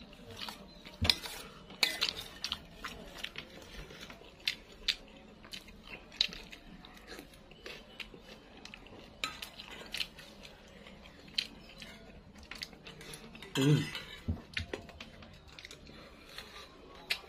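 Metal spoon clinking and scraping against a stainless steel bowl during eating, in many irregular sharp clicks. About three-quarters of the way through comes one louder, short sound with a falling pitch.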